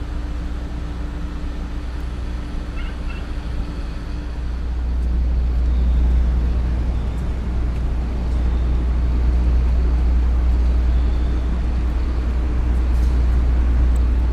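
Low, steady rumble and hum of a moored car ferry's engines running, growing louder about five seconds in.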